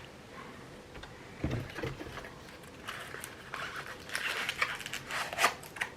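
Handling sounds from unpacking: scattered light knocks and clicks, with rustling of packaging about four seconds in and a sharper click near the end.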